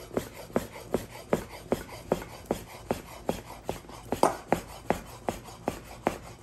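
A kitchen knife chopping through thin, lightly baked dough onto a plastic cutting board, cutting it into strips. The blade hits the board in a steady rhythm of sharp taps, about two and a half a second.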